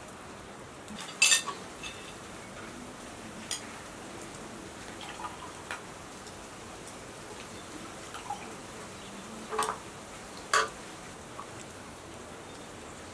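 Metal spoons and forks clinking and scraping on china plates as people eat, a handful of sharp clinks scattered through, the loudest about a second in and near the end, over a steady faint hiss.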